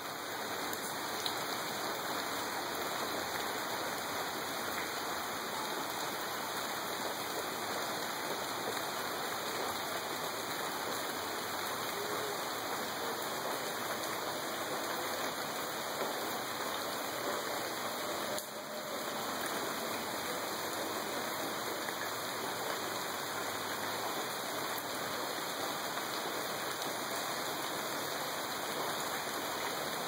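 Tropical rain falling steadily on garden foliage and ground, a dense even hiss.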